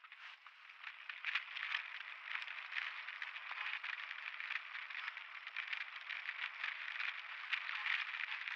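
Mountain bike riding fast down a dirt trail, heard through the on-board camera: a steady rush of tyre and riding noise with frequent rattles and clicks as the bike goes over the bumps.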